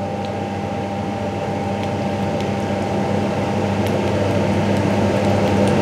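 Steady electric hum of commercial kitchen equipment, growing slightly louder, with a few faint light clicks of a metal spoon.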